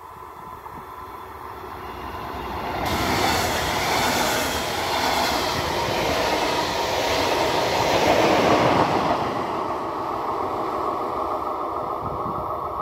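A DB double-deck regional train passing close by at speed. Its rumble builds, the wheel-on-rail noise comes in sharply about three seconds in, stays loudest through the middle, then eases off as the locomotive at the rear draws away.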